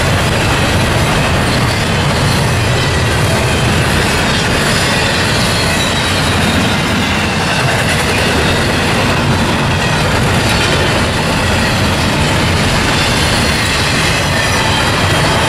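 Double-stack container train's well cars rolling past fast: a loud, steady rumble and clatter of steel wheels on rail.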